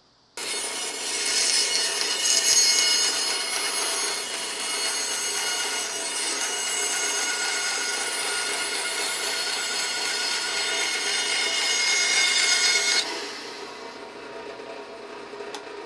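Bandsaw cutting an angle through a pine board: a steady, dense sawing noise with a ringing whine from the blade. About 13 seconds in the cut ends and the saw runs on more quietly.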